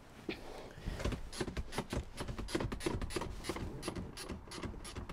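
VW T6 passenger seat's height-adjust pump lever being worked to lower the seat: a run of quick ratchet clicks, several a second, starting about a second in.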